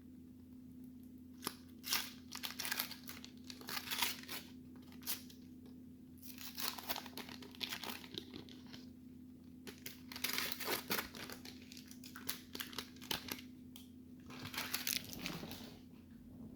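A Donruss baseball card wax pack being torn open and its wrapper crinkled, in several bursts of crackling separated by short pauses, over a faint steady hum.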